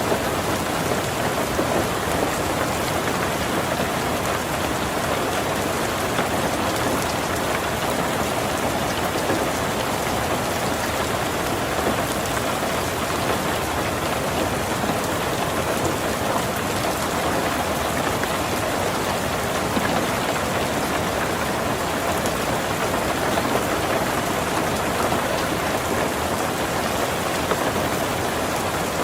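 Heavy rain falling steadily on a tin roof, a dense, even patter.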